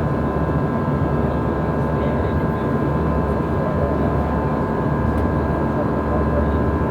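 Steady cabin noise of an Airbus A320 in flight: a dense, unbroken drone of engines and airflow, with thin steady whine tones running through it.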